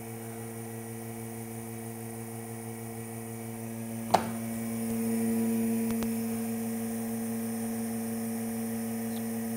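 Steady electrical hum with a low buzz, and a single sharp knock about four seconds in as a wooden block is set down on the table saw's steel top.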